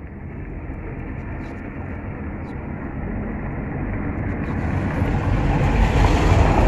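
A vehicle's steady rumble growing louder as it approaches along the street, with a few short tongue clicks calling a dog.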